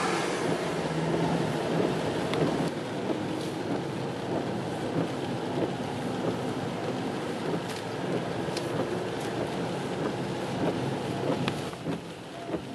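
Car cabin noise while driving on a wet road in the rain: a steady hiss of road and engine noise with scattered sharp ticks. It falls quieter near the end.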